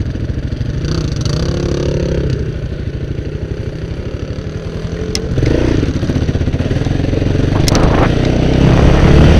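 Quad (ATV) engine running with a steady low pulsing beat, the throttle opening about five and a half seconds in and the engine getting louder again near the end as the quad pulls away. A few sharp clicks cut through it.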